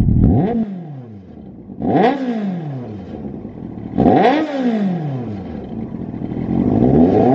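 Yamaha FZS1000's inline-four engine revving through a Lextek SP8C aftermarket silencer: three sharp blips, each rising quickly and falling back toward idle. Near the end a slower climb rises to a held higher rev.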